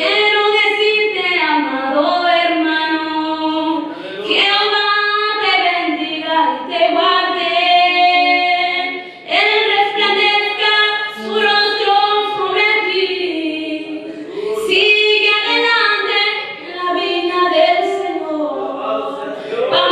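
High female voices singing a worship song in long, held phrases, with a brief break about nine seconds in.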